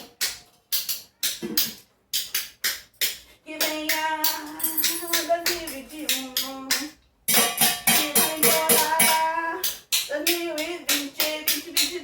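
Spoons played as a rhythm instrument, sharp clacks a few to the second. About three and a half seconds in, singing joins over the spoon beat, with short breaks around seven and ten seconds.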